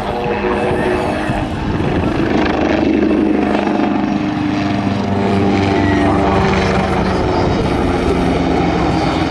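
PZL SW-4 Puszczyk light helicopter's turboshaft engine and rotor blades, a steady whine and beat over a rumbling noise as it banks close overhead, getting louder about three seconds in.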